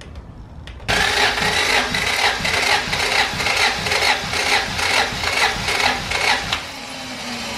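Starter motor cranking a Honda DOHC VTEC four-cylinder engine for a compression test, without it firing. It starts about a second in, goes in an even pulsing rhythm of about three strokes a second under a steady starter whine, and stops shortly before the end.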